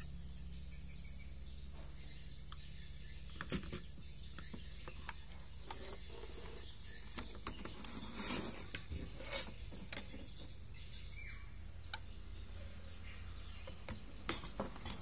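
Scattered light clicks, knocks and brief scrapes from a TV circuit board and its components being handled and turned over, over a steady low hum.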